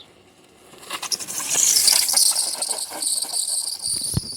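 Bicycle tyre squealing on pavement as the rider skids: a high-pitched whistle that builds from about a second in, holds for about three seconds, then cuts off suddenly.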